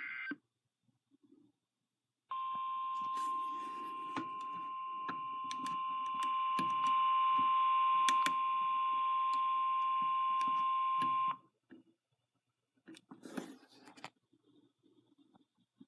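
NOAA Weather Radio warning alarm tone: a single steady 1050 Hz tone held for about nine seconds, starting a couple of seconds in, received over the radio with crackling static and clicks under it. A short burst of static follows about thirteen seconds in.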